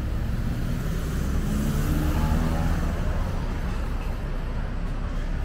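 City street traffic: motor vehicle engines running close by in a steady rumble, swelling as a vehicle passes about two seconds in.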